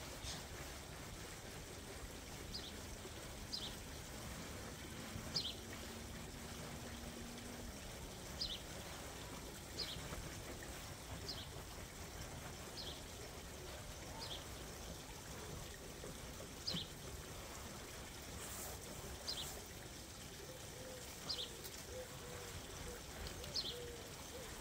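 Water trickling and swishing as a long-handled brush scrubs the floor of an inflatable Lay-Z-Spa hot tub, with short high chirps repeating every second or two.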